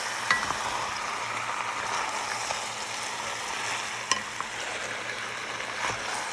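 Beef chunks with onions and olive oil sizzling in an enamelled pot while a spatula stirs them. Two sharp clinks stand out, one about a third of a second in and one about four seconds in.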